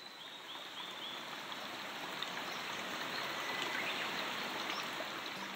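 Steady rushing noise like running water or surf. It fades in at the start and eases off near the end, with a few faint high chirps in the first second.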